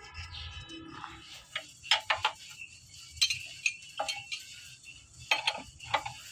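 Metal parts and tools of a sugarcane juicer being handled in repair: a series of irregular sharp metallic knocks and clinks, each ringing briefly.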